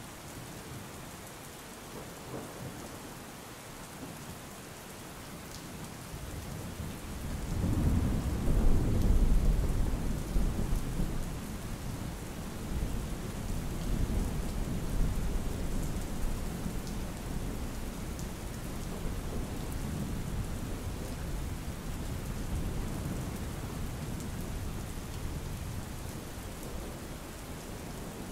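Steady rain falling, with a long roll of thunder that swells in about a quarter of the way through, is loudest a couple of seconds later, and slowly rumbles away.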